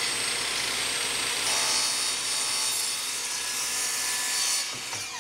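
Electric miter saw running and cutting across a thin beadboard panel, the blade noise heavier for most of the cut. Near the end the cut finishes and the saw's sound drops as the motor begins to wind down.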